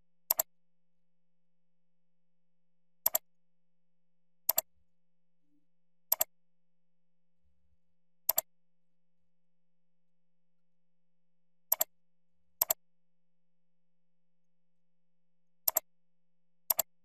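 Computer mouse clicks: nine sharp clicks at uneven intervals, each a quick press-and-release pair, over a faint steady low hum.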